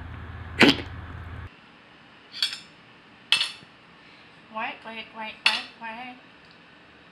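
A sharp click and a low hum that cuts off about a second and a half in, then forks and plates clinking a few times at a dinner table.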